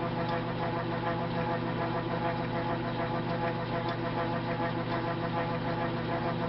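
South Bend lathe running at a steady speed, its motor and drive giving an even hum with a steady whine.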